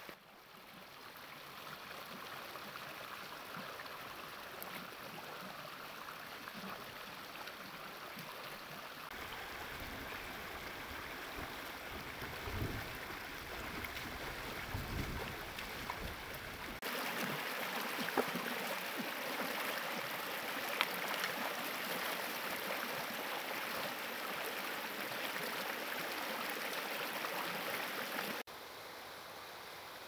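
Rocky stream rushing over stones, a steady noise of water that jumps louder about halfway through and drops back near the end, with a few brief splashes as hands work in the water.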